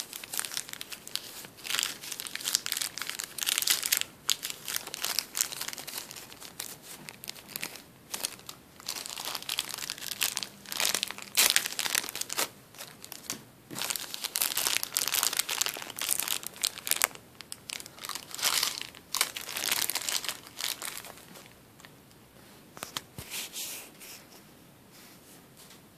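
Plastic bag full of cotton balls crinkled and squeezed by hand in irregular bursts, thinning out and growing quieter over the last few seconds.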